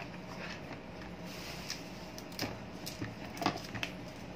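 Several light clicks and knocks as an electric fan's motor and wired parts are handled during disassembly, the loudest about three and a half seconds in, over a steady background hum.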